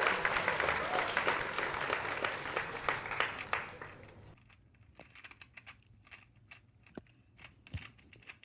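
Rubik's cube being turned fast in the hands: dense plastic clicking and rustling for the first four seconds, dying away to scattered single clicks of the layers.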